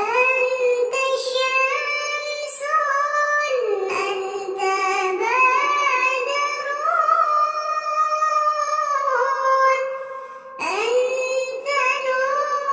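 A high, child-like singing voice holding long, wavering notes over music. It comes in suddenly, dips about ten and a half seconds in, and the next phrase sweeps upward.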